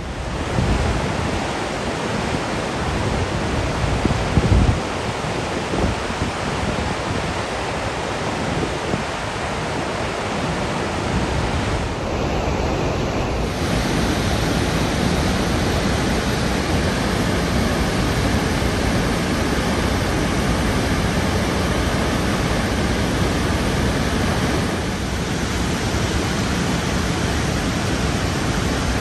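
Steady roar of the Rhine Falls, a large waterfall, heard as an even rushing of water. A few low bumps, like wind on the microphone, come in the first five seconds.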